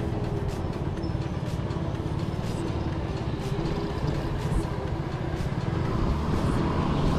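Steady road and traffic noise from riding a shared electric scooter through city streets: a low rumble with a faint steady hum, growing a little louder near the end.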